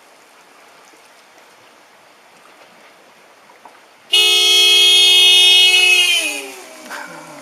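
Car horn blaring on its own, as horns do when floodwater shorts a car's electrics. It starts suddenly about four seconds in, holds steady for about two seconds, then its pitch sags and it weakens to a lower, fainter tone.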